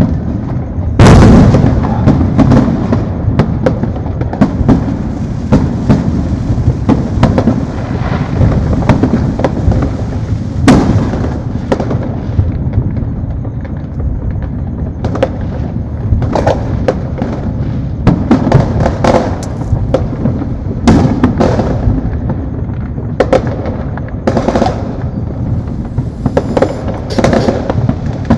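Many fireworks going off at once: a constant rumble of overlapping booms with sharp pops and cracks on top. There is a big blast about a second in and another near eleven seconds.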